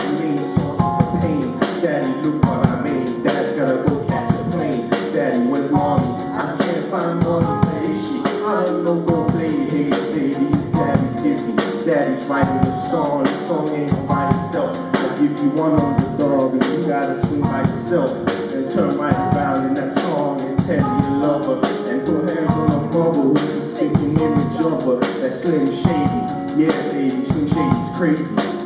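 Live band music: a drum kit keeps a steady beat under a male voice singing into a handheld microphone, with other pitched instruments filling in.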